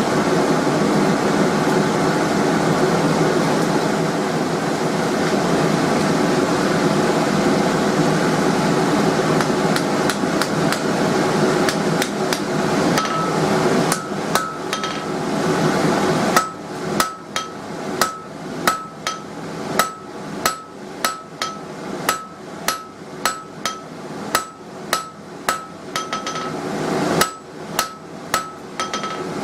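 Hand hammer striking hot steel on an anvil while forging a chisel point on a square bar, each blow with a short ringing tone. A steady rushing noise runs under the first few scattered blows and cuts off about sixteen seconds in. After that the hammering is regular, about one and a half blows a second, with a brief pause near the end.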